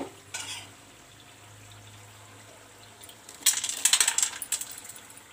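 Crisp fried murukulu rustling and clattering against a steel bowl and slotted spoon as they are moved about: a short rustle just after the start, then a loud burst of dry, crackly clicks for about a second, some three and a half seconds in.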